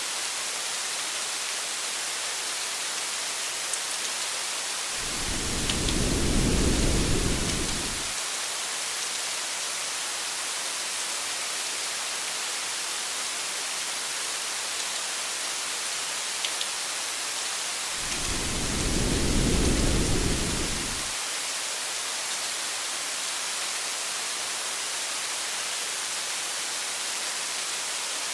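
Steady rain hiss, with two low thunder rumbles of about three seconds each, one about five seconds in and one near eighteen seconds in.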